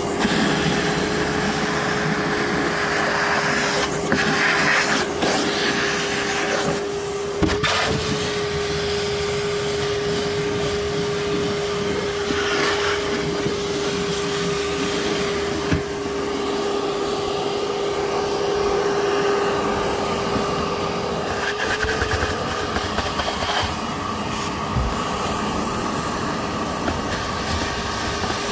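Bauer shop vac running on suction, vacuuming leftover water from a drained hot tub basin: a steady motor whine over rushing air, with a few brief sharp sounds about four to eight seconds in.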